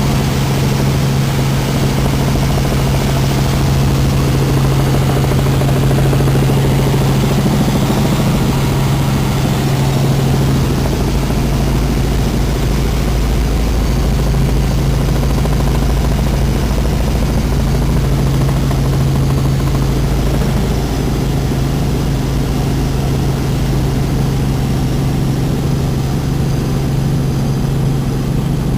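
Helicopter in flight: a loud, steady drone of engine and rotor with a strong low hum and a rumble beneath it.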